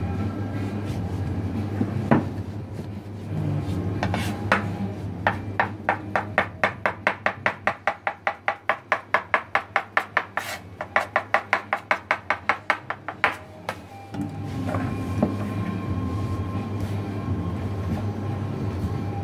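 Kitchen knife chopping rapidly through rolled fresh pasta dough on a counter, an even run of sharp taps about five or six a second, starting about five seconds in and stopping some eight seconds later. A steady low hum lies underneath.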